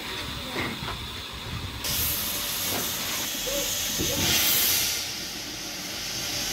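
Steam hissing from an Andrew Barclay 0-6-0 saddle tank locomotive, heard from its footplate. The hiss starts abruptly about two seconds in and swells louder for about a second near the middle.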